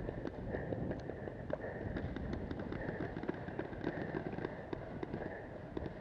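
Footsteps of a paintball player moving quickly over dry leaves and grass, with gear rattling and many scattered sharp clicks and pops.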